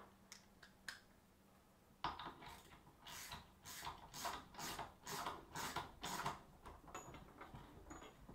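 Socket ratchet clicking in a run of short strokes, about two a second, as a vise mounting bolt is run down, then easing off to a few light ticks.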